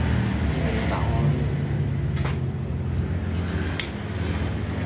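A steady low hum, with two sharp clicks a little over two seconds and nearly four seconds in.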